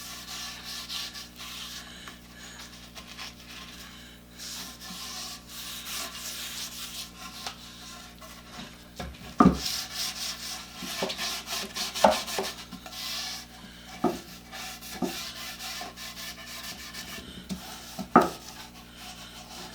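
Rag rubbing boiled linseed oil onto a wooden vise chop, an irregular scrubbing with a few sharp knocks along the way, the loudest about nine seconds in.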